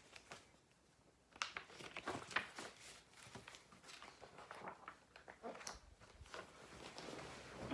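Faint handling of a picture book being opened before a read-aloud: light paper rustles and small clicks and taps, starting about a second and a half in.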